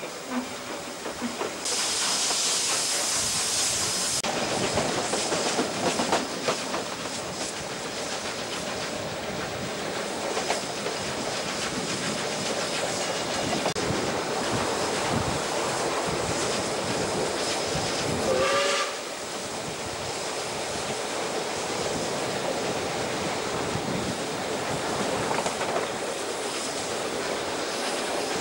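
Broad-gauge steam locomotive 520 running with its train: steady running noise of the engine and wheels on the rails, with a loud hiss of steam lasting about two seconds near the start. About two-thirds of the way through, a short whistle toot rises slightly in pitch.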